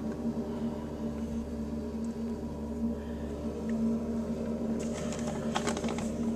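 Skid-steer loader's engine running at a steady, even hum, muffled through a window, with a few short clicks near the end.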